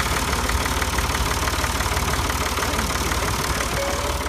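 A vehicle engine running steadily, with a fast even pulse.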